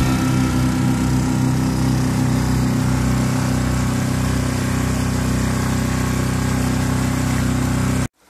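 Small boat's outboard motor running at a steady speed while the boat moves through the water. The sound cuts off suddenly near the end.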